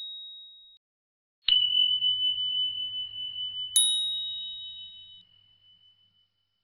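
Bell-like dings with pure, clear tones: a high ding rings out at the start, a lower ding about a second and a half in rings on for about five seconds, and another high ding about four seconds in fades away over a second and a half.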